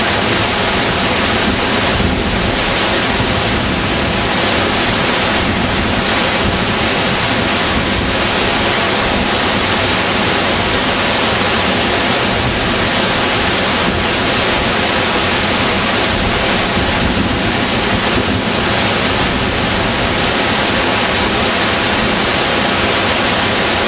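Waterfall pouring into its plunge pool: a loud, steady rush of falling and churning whitewater.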